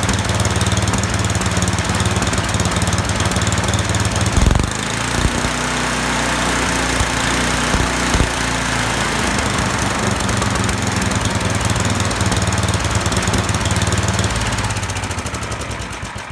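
Craftsman snowblower's single-cylinder four-stroke engine running steadily on a newly fitted replacement carburetor, with no surging. Its note changes about four and a half seconds in, and near the end it starts to wind down as it is shut off.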